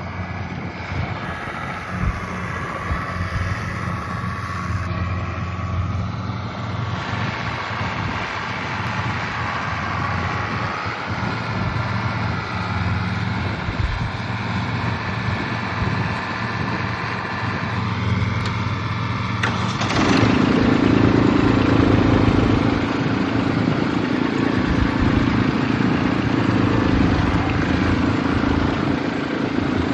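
Diesel tractor engine running steadily under load. About twenty seconds in it gets louder, and a deeper drone comes in.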